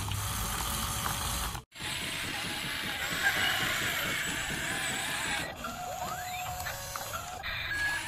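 Small electric gear motors of a toy RC excavator whirring as its boom and bucket move, with chickens clucking in the background. The sound drops out briefly just before two seconds in.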